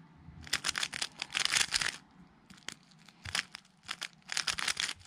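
A MoYu RS3M 2020 magnetic 3x3 speedcube being turned at speed through a PLL algorithm: bursts of rapid plastic clicks and clacks as the layers turn, with short pauses between groups of turns.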